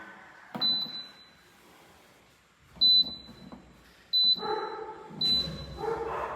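Electric water heater's control panel beeping: four short, high beeps, spaced one to two seconds apart.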